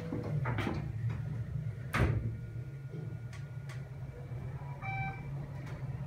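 Passenger elevator car in motion with a steady low hum, with light clicks and a sharp knock about two seconds in. A short electronic chime sounds near the end.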